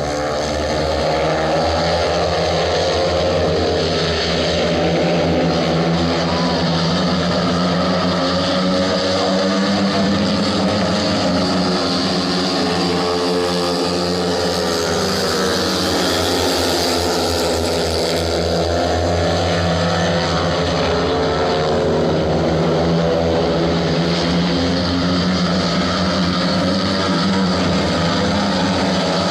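Several speedway motorcycles racing, their 500 cc single-cylinder methanol engines revving up and down in pitch, one layered over another, as they power round the track.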